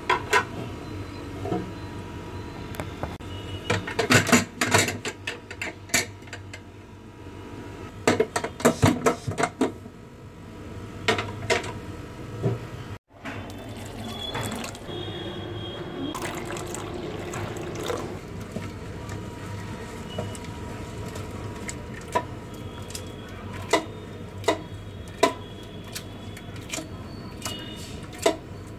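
Kitchen handling sounds: clusters of sharp clinks and knocks of utensils and dishes against a steel pressure cooker, over a steady background hum.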